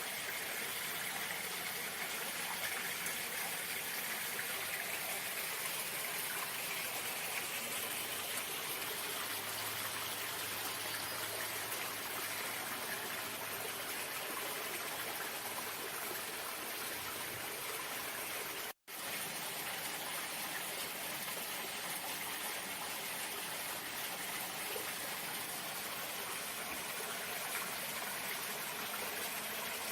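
Running water flowing steadily, as a constant rushing hiss. It drops out to silence for a split second about two-thirds of the way through, then resumes unchanged.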